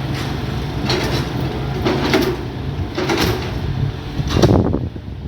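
Excavator's diesel engine running with a steady low rumble, with several short scraping or clanking strokes from the working machine. The loudest comes about four and a half seconds in.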